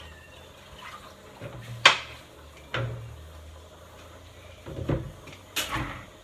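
Kitchenware being handled at a kitchen sink: plastic bottles and a cup knocked and set down, four sharp clatters, the loudest about two seconds in.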